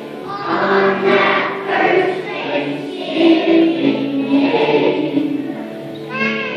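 A choir of young children singing a song together on stage.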